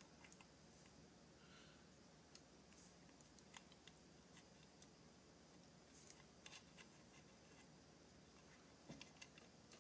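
Near silence with a few faint, scattered clicks from small metal parts being handled as a wrist pin is pushed through a chainsaw piston onto the connecting rod.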